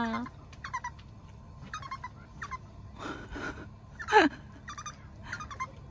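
Small dog whimpering in short, thin, high-pitched squeaks, like a little pipe. There is a breathy puff about three seconds in and a short falling whine about four seconds in. It is a begging whine for more food.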